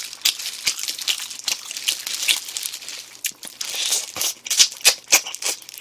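Eating a spicy chicken wing close to the microphone: the wing pulled apart by hand in disposable plastic gloves that crinkle, then bitten and chewed, as many short wet clicks and crackles.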